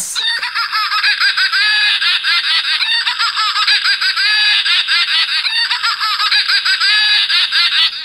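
Novelty laughing toy playing a recording of continuous, high-pitched cackling laughter, thin and tinny with almost no low end.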